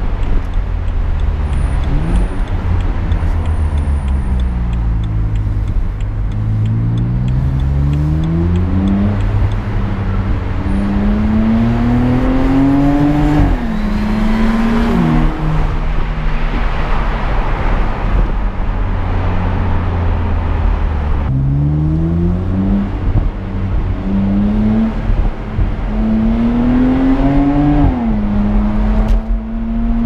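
BMW Z4 35is (E89) twin-turbocharged straight-six engine heard from the driver's seat. Its pitch falls for the first few seconds as the car slows, then climbs in two pulls through the gears, dropping sharply at each upshift. A steady low road rumble runs underneath.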